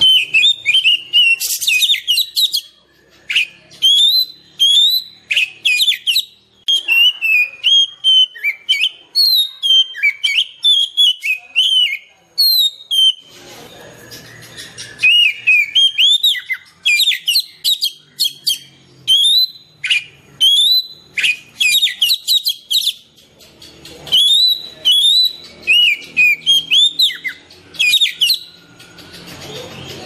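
Oriental magpie-robin singing: a long run of loud, clear whistled notes that slur up and down, in quick phrases broken by short pauses every few seconds.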